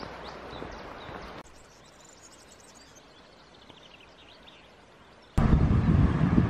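Small birds chirping over a steady outdoor hiss, changing abruptly at two cuts; from about five seconds in, loud wind buffeting the microphone covers everything.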